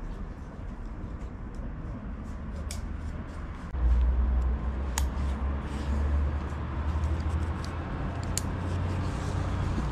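Wind buffeting the microphone, a low uneven rumble that grows much stronger about four seconds in, with a few faint clicks.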